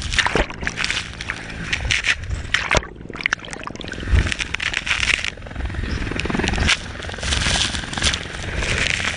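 Sea water splashing and sloshing over a swimmer's body-worn camera as he swims through a helicopter's rotor downwash, with the downwash buffeting the microphone. The sound is briefly muffled about three seconds in.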